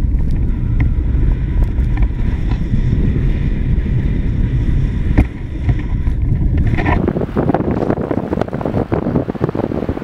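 Wind buffeting the microphone of a camera riding on a moving bicycle, a loud steady rumble. About seven seconds in it changes to a rougher rustle with many small crackles.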